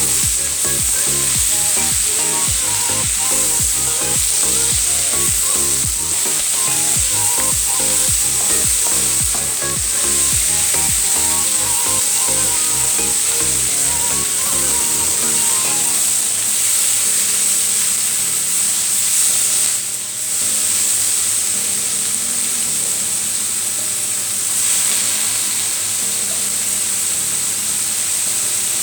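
Vegetables stir-frying in hot oil in a pan, with a steady sizzle throughout.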